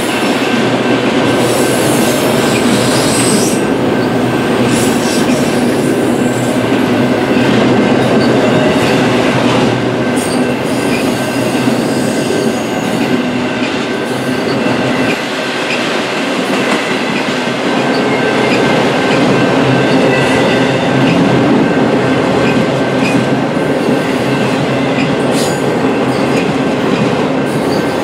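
Freight train of autorack cars rolling past at speed: a steady, loud noise of steel wheels on rail, with a faint steady high ringing tone running through it and occasional clicks.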